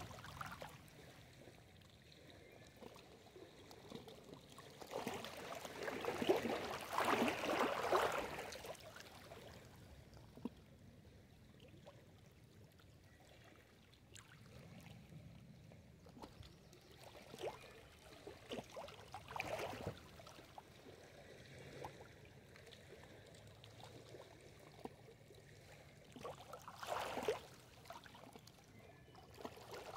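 Small lake waves lapping and splashing against a rocky shoreline, in uneven washes with the biggest about six to eight seconds in and smaller splashes later.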